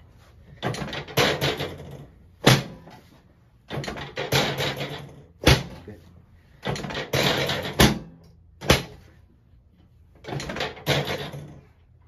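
A chiropractic drop table thuds sharply four times as the pelvic section drops under quick thrusts on the patient's hip, with rustling of hands on clothing in between.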